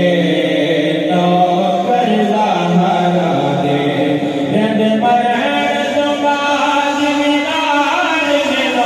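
Male voices singing a naat, a devotional poem in praise of the Prophet, unaccompanied and amplified through hand-held microphones, in long held melodic lines that step from one pitch to the next.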